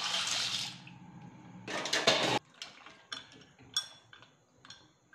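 Dry penne pasta poured into boiling water in a pan, a rushing rattle and splash heard twice, followed by a spatula stirring it and knocking against the pan in a handful of separate clinks.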